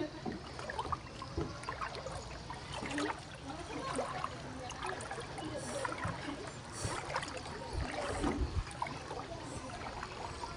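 Water trickling and lapping around a small boat as it is paddled through floodwater, with small knocks and splashes and a few dull low knocks about eight seconds in.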